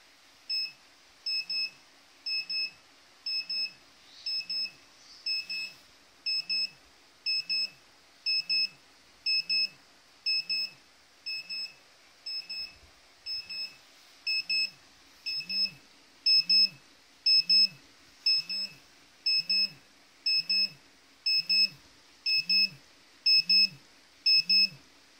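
Radiation dosimeter alarm beeping in quick pairs, about one pair a second, louder in the second half. It signals a dose rate above the alarm threshold, with a radioactive check source held close.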